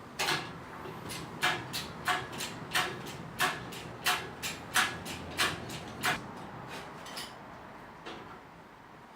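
Series of sharp metallic clicks, about two to three a second, for some six seconds, then stopping, from the lifting gear working while the engine is lowered into the bay.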